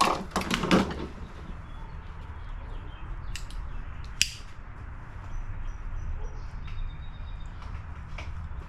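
Hand tools and metal mower parts knocking and rattling during removal of a lawn mower's carburetor, with a sharp click about four seconds in. Faint bird chirps come in near the middle.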